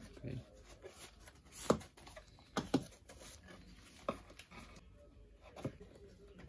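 Handling of camera packaging: paper wrapping rustles and items knock lightly against the cardboard box and desk, with several sharp taps, the loudest about two seconds in.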